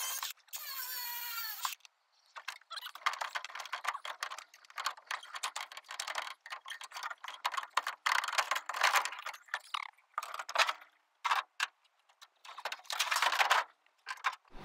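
Cordless grinder cutting metal in a junked car's dash for the first couple of seconds, its whine dropping in pitch as it bites, then stopping. Irregular clinks and rattles of loose metal parts follow as the parts are worked free.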